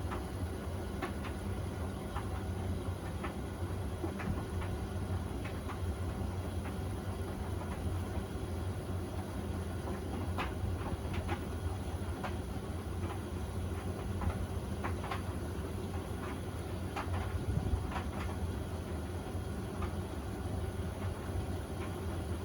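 Beko washing machine filling with water at the start of its wash cycle: a steady low hum with scattered light clicks.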